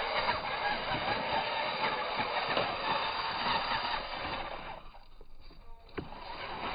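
RC rock crawler's motor and drivetrain whirring as it crawls over large cobbles, with small clicks and scrapes of wheels and chassis on the stones. The whirr stops for about a second near five seconds in, then a knock and the driving starts again.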